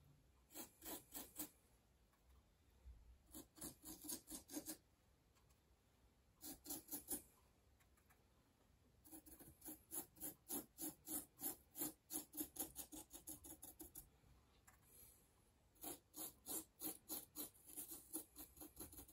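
Faint scrubbing of a number 6 flat-headed paintbrush working weathering powder into a carved Celotex rock face: runs of quick back-and-forth strokes, with short pauses between them.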